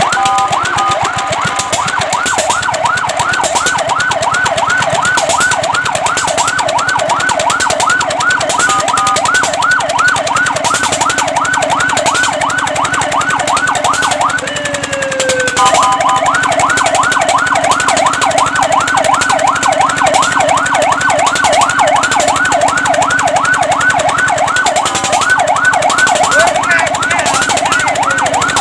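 Fire truck siren on a fast yelp, sweeping up and down about four times a second. A steady two-note horn tone sounds over it a few times. About halfway the yelp breaks off for roughly a second while the pitch glides down, then it starts again.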